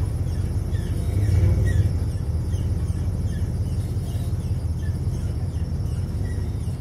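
A pickup truck's engine runs low and steady as it slowly tows an old truck past, a little louder about a second and a half in. Faint high chirps sound over it now and then.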